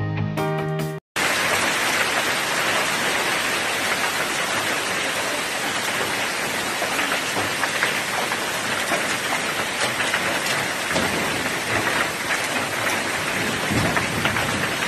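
Hail pelting down in a storm: a dense, steady hiss made of countless small hits on the station platform and the ground around it. It starts about a second in, right after a short burst of music that cuts off.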